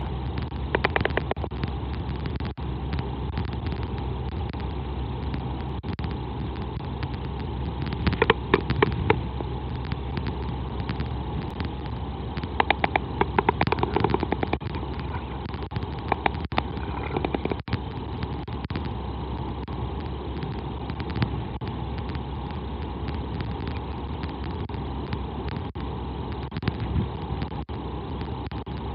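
Steady wind noise on an outdoor microphone. Several short bursts of rapid clacking cut through it: about a second in, around eight seconds, and again around thirteen to fourteen seconds. The clacking fits northern royal albatross chicks clapping their bills during a territorial chase.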